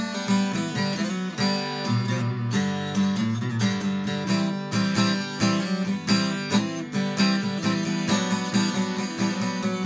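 Cutaway acoustic guitar played in an alternate tuning, improvising a quick run of picked and strummed notes over a ringing low note that changes a few times.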